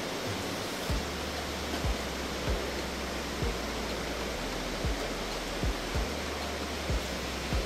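Steady rushing noise with short, soft low thumps about once a second, the footfalls of someone walking with the camera.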